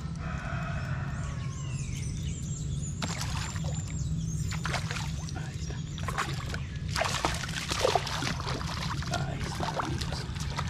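Hooked tararira (trahira) thrashing at the surface close to the bank, giving repeated splashes from about three seconds in, heaviest around seven to eight seconds.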